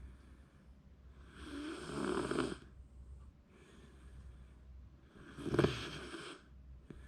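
Shiba Inu snoring in its sleep: rhythmic noisy breaths every one to two seconds, with the loudest snores about two seconds in and again near six seconds.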